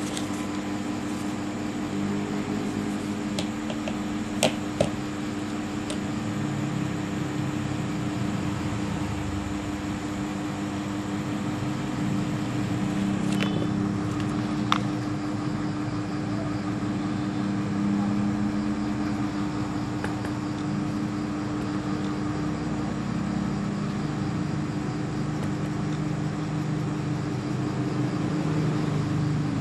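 Steady machine hum with a constant tone and a low rumble. A few sharp clicks, a quick pair about four and a half seconds in and two more between thirteen and fifteen seconds.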